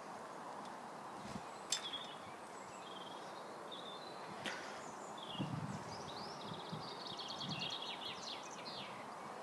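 Small birds chirping and singing a rapid trill over a steady outdoor background hum, with a sharp click about two seconds in and another near the middle.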